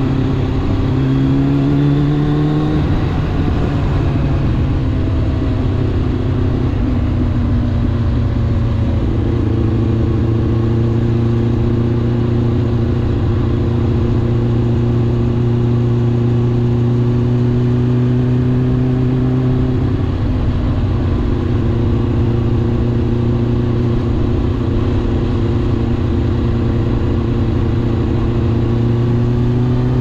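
Kawasaki ZX-9R's inline-four engine under way, with wind rush on the helmet camera. The engine note climbs for the first few seconds, drops, then holds steady at cruise, and starts climbing again near the end.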